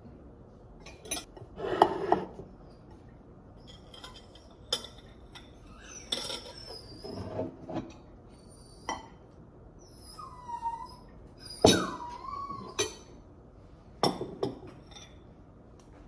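Forks clinking and scraping against plates and a salad bowl during a meal, a dozen or so sharp clinks at irregular intervals. Around two-thirds of the way in come two short whines that bend in pitch, from a dog.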